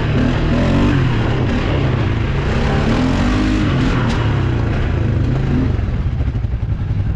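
CFMoto 850 ATV's V-twin engine revving up and down repeatedly under throttle. It drops to a lower, pulsing run about six seconds in.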